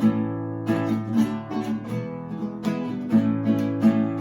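Acoustic guitar strummed in a steady rhythm, the instrumental intro before the singing of a worship song begins.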